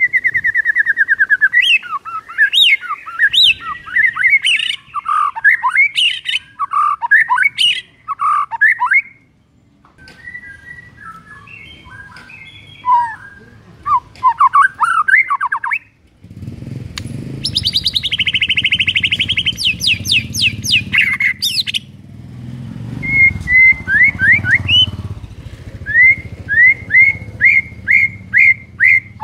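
White-rumped shama (murai batu) singing a loud, varied song of whistles, rapid trills and sharp chattering notes. Past the middle it gives a fast trill, and near the end a run of short rising whistles repeated about twice a second. A low rumble runs underneath through the second half.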